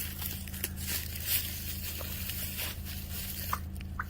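A steady rasping hiss, then near the end the first short, high chirps of a thrown rock on frozen pond ice.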